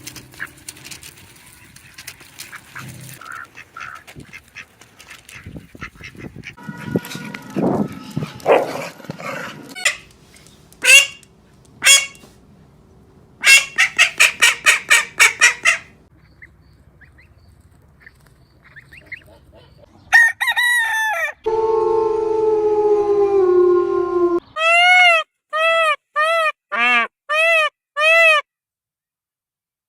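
A run of separate animal and bird calls: two sharp calls, then a rapid string of about ten short calls, a low drawn-out call, and six short rising-and-falling calls near the end.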